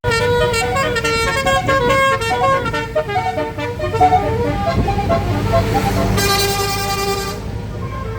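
Indonesian bus 'telolet basuri' multi-tone air horn playing a tune of quick stepped notes, followed about six seconds in by one held horn blast lasting about a second.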